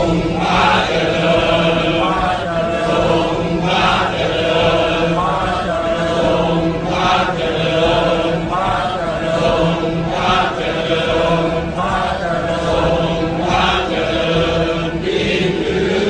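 A group of voices singing in a slow, chant-like choral style over steady low accompaniment, moving in long-held phrases a few seconds apart.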